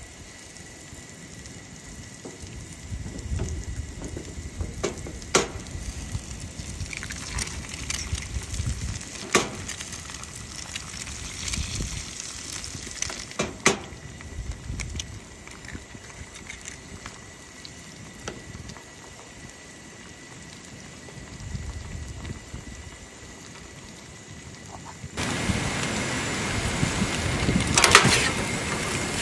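Meat frying in a pan on a Coleman camp stove, a soft sizzle under a low rumble, with a few sharp taps as eggs are cracked into the pan. Near the end, a louder sizzle of scrambled eggs frying while a metal spoon stirs and scrapes the pan.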